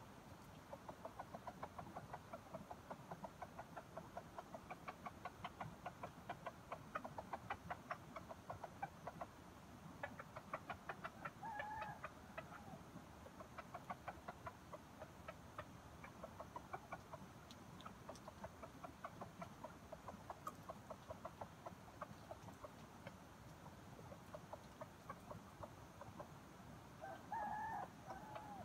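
Red junglefowl (wild chicken) rooster clucking in long runs of quick, short clucks, several a second, with two brief higher calls, one about halfway through and one near the end.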